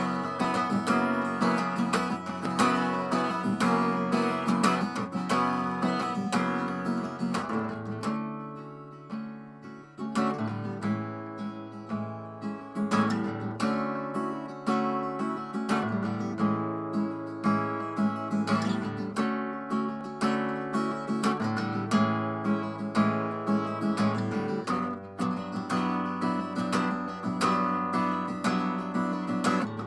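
Background music of strummed acoustic guitar, easing off briefly about eight seconds in before carrying on.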